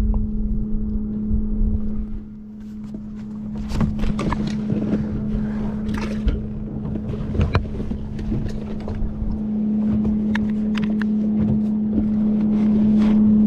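A boat's small electric motor humming at one steady pitch, with scattered clicks, knocks and rattles from handling on the carpeted deck.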